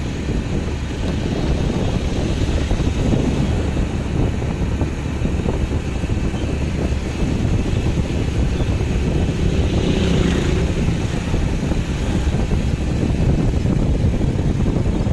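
Steady low rumble of a moving road vehicle, engine and road noise mixed with wind on the microphone, with a brief higher hiss about ten seconds in.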